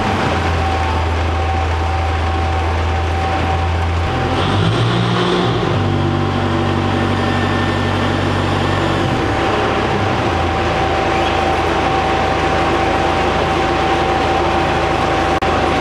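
Double-shaft shredder with twin 30 kW electric motors running steadily while it shreds a bale of cardboard, giving a continuous mechanical drone with a steady hum. The low part of the drone shifts in pitch about four seconds in and again near ten seconds.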